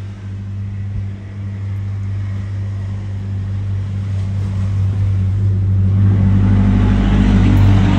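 Steady low hum of a running motor, growing louder over the last couple of seconds.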